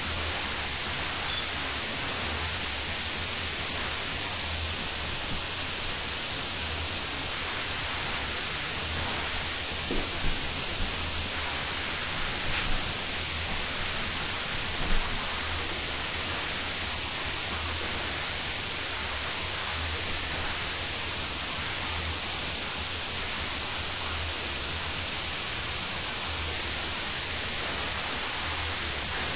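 Steady hiss of recording noise, with a wavering low hum underneath. A few light thumps come through about ten and fifteen seconds in.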